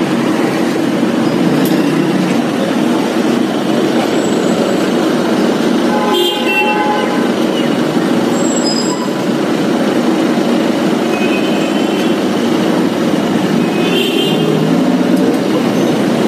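Steady street traffic noise, with a vehicle horn tooting about six seconds in and again near the end.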